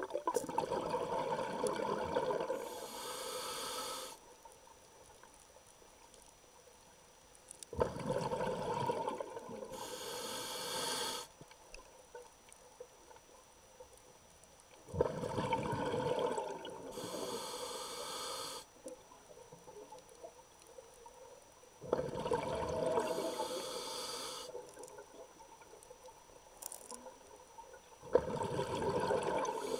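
Scuba diver breathing through a regulator underwater: five breaths about seven seconds apart. Each is a rush of bubbling followed by a short, higher hiss, with a low background between breaths.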